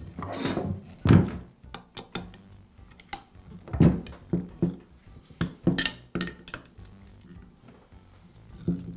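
Handling noise from a hand screwdriver and the plastic-bodied Makita power scraper on a wooden workbench as the motor housing screws are driven in: scattered knocks and clacks, the loudest about a second in and again just before four seconds in.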